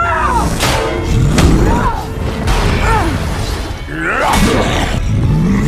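Action-film battle soundtrack: dramatic score music under fight sound effects, with heavy impacts and booms and shouted battle cries, including a woman's yell at the start.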